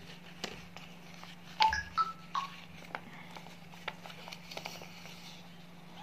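Paper being handled and folded by hand, with soft crinkles and light creasing clicks over a steady low hum. About a second and a half in, three short electronic beeps sound in quick succession, like phone keypad tones; these are the loudest sounds.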